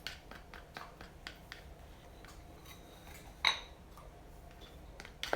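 Scattered light clicks and taps of utensils and containers while baking soda is added to a glue mix for slime, with one louder, ringing clink about three and a half seconds in.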